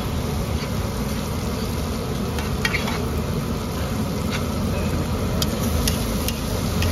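Chickpea curry sizzling on a large flat iron griddle as a spatula stirs and scrapes through it, with a few sharp clicks of the spatula on the pan.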